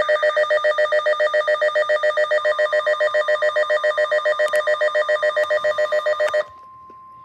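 Electronic emergency weather alert tone beeping rapidly, about six pulses a second, signalling a severe thunderstorm warning. It cuts off sharply about six and a half seconds in, leaving a faint steady tone.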